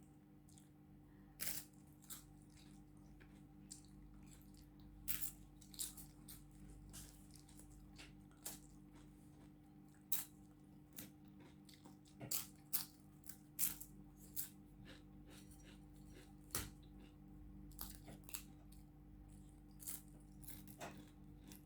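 A person chewing crisp food close to the microphone: irregular sharp crunches come every second or so, some in quick clusters, over a faint steady hum.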